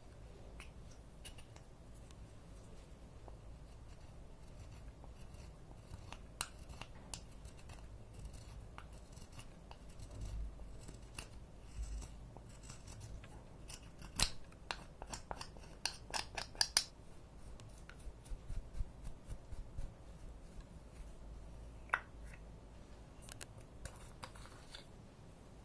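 Sharp clicks and snips at irregular intervals, from small objects being handled up close, with a dense run of them about fourteen to seventeen seconds in.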